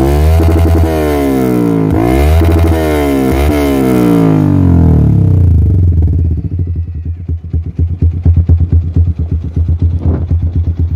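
Yamaha Vixion Advance's 150 cc single-cylinder four-stroke engine through an aftermarket Akrapovic-style slip-on muffler, revved hard with the pitch dipping and climbing several times. About six seconds in it falls back to a choppy, uneven idle, very noisy.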